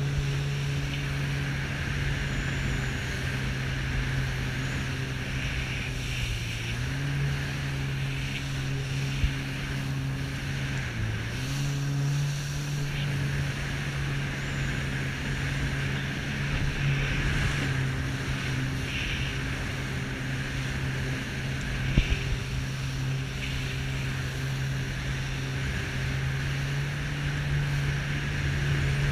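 Jet ski engine running steadily at cruising speed, its pitch dipping briefly twice, about seven and eleven seconds in, with water rushing along the hull. Two sharp knocks stand out, one about nine seconds in and one about twenty-two seconds in.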